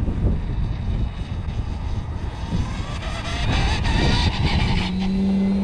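RC model plane on its takeoff roll: a rasping scrape from the tailwheel rubbing against the fuselage, over a motor whine that rises as the throttle comes up. Near the end the propeller settles into a steady tone at full power, and wind rumbles on the microphone.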